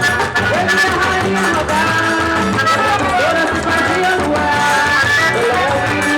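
Loud festa junina dance music from Northeast Brazil, with a steady drum beat under gliding melody lines.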